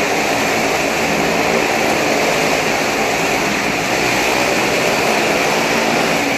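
Loud, steady engine noise of vehicles riding the wall of a wooden wall-of-death drum.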